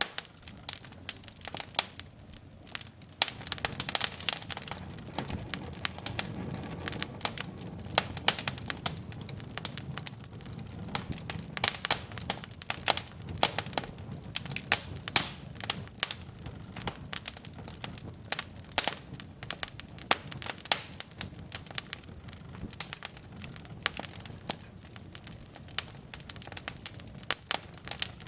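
Wood fire burning in a fireplace: logs crackling and popping with irregular sharp snaps over a soft low rush of flame.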